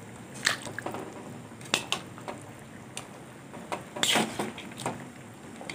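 Metal spoon clinking and scraping against a steel kadai while stirring and lifting pieces of mutton in curry, in scattered knocks with a longer, loudest scrape about four seconds in.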